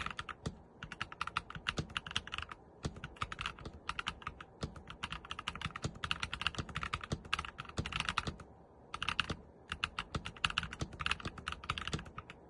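Typing on a compact mechanical keyboard with Gateron Black linear switches: rapid keystrokes in runs, broken by several short pauses.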